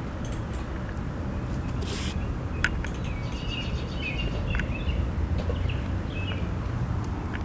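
Small birds chirping several times over a steady low rumble, with a few sharp clicks.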